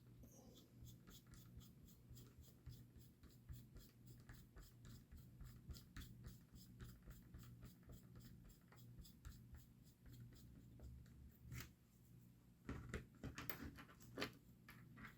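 Small screw being driven into an RC truck's steering linkage with a hand tool: faint rapid ticks and scratching, with a few louder clicks and knocks near the end.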